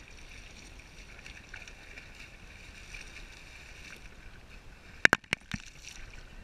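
Small waves lapping and sloshing at a GoPro held at the water's surface, heard through its waterproof housing. About five seconds in, a quick run of four sharp clicks.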